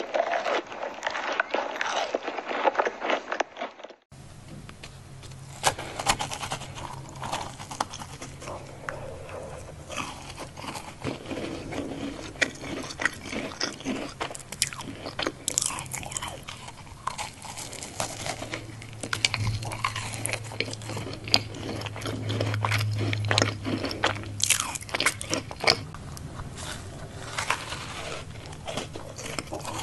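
Close-miked macarons being bitten and chewed, the crisp shells crunching in irregular bites.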